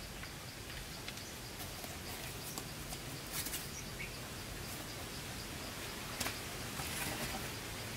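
Steady rain falling, with scattered louder drops ticking now and then.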